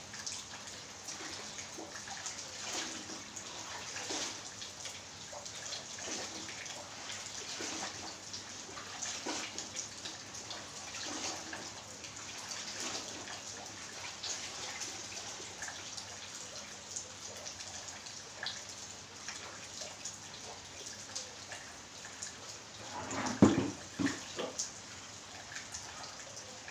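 Steady patter of light rain and dripping water, with many small drip ticks. Near the end come a few louder splashes and knocks as a plastic bucket of water is tipped over.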